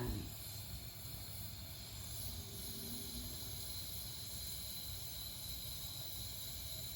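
Propane torch hissing steadily as gas flows from its nozzle into a two-can heater.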